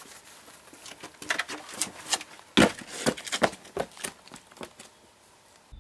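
Running footsteps on stone paving: a quick, irregular run of sharp steps that fades away near the end.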